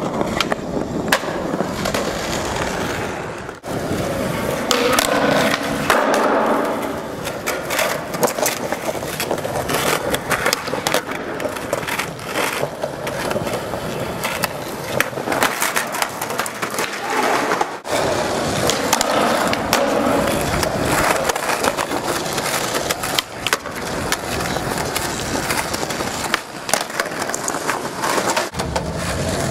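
Skateboards rolling on a skatepark with a steady wheel rumble and frequent sharp clacks and slaps of boards hitting the ground and obstacles. The sound cuts out for an instant twice.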